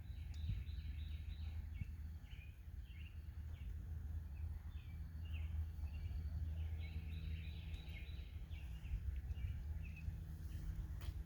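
Small birds chirping in quick repeated runs over a steady low hum, with a couple of faint clicks near the end.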